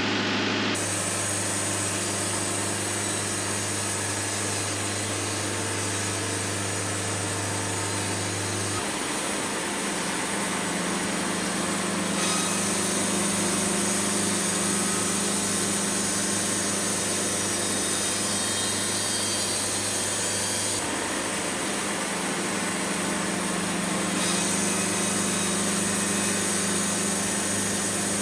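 Machinery running steadily with a low hum, the sound shifting abruptly several times.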